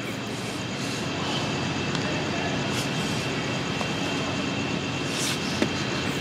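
Steady low rumble and hiss of urban traffic noise, with a faint steady high tone over it.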